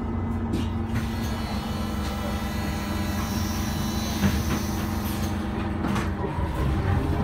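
Interior sound of an Iveco Urbanway 12 city bus: the engine hum runs steadily, with a hiss a few seconds in and a few short clicks.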